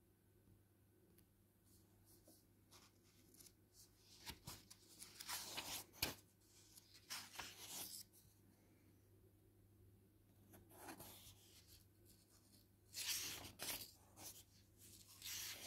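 Pages of a paperback book being turned by hand: several soft paper rustles, in a cluster a few seconds in and again near the end, over a faint steady room hum.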